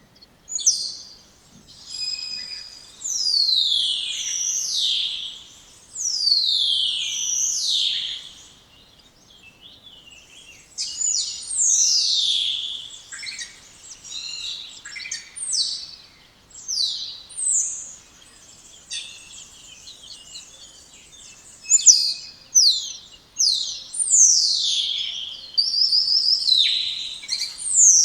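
Spotless starling singing: long whistles that sweep steeply down from very high to mid pitch, mixed with short clipped notes and chatter, in phrases with brief pauses between them.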